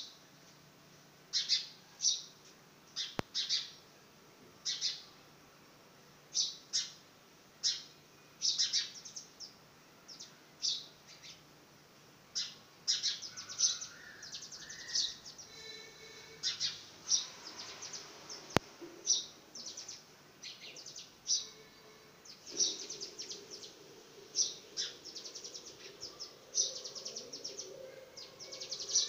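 House sparrow chirping: short, high chirps repeated every second or so, sometimes in quick pairs, more tightly bunched in the second half.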